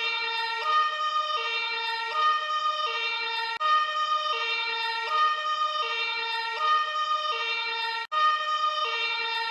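German-style two-tone emergency siren (Martinshorn) sounding steadily, switching between a lower and a higher tone about every three quarters of a second, with a brief cut in the sound about eight seconds in.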